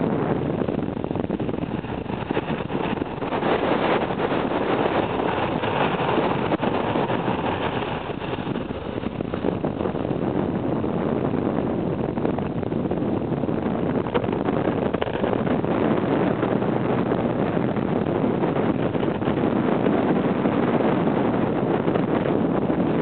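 Steady rush of wind on the microphone of a moving vehicle at road speed, mixed with engine and road noise.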